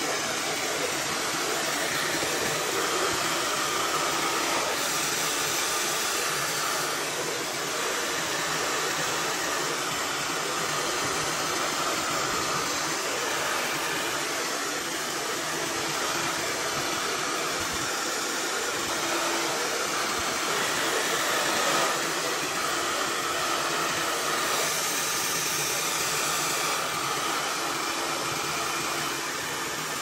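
Handheld hair dryer running steadily, blowing air into a freezer compartment to melt the built-up ice.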